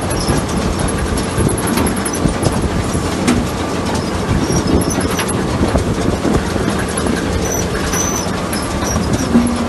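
Potato-digging harvest machinery running with a steady rattling clatter.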